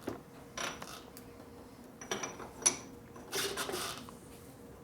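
Metal parts and tools being handled: a few scattered clinks, clatters and scrapes, with one sharp metallic clink a little past halfway.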